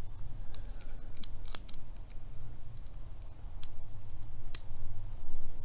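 Sharp metallic clicks from a Master Lock Pro Series 7050 padlock being worked with its key. There are several separate clicks, the loudest about a second and a half in and a few more near the end, over a faint low hum.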